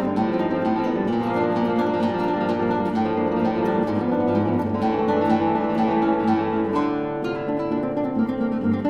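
Background music of a solo acoustic guitar played with plucked notes that ring over one another.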